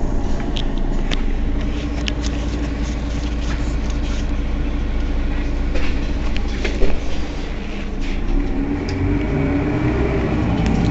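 Mercedes-Benz Citaro city bus standing with its engine idling steadily at the rear, with scattered clicks and one louder knock about seven seconds in.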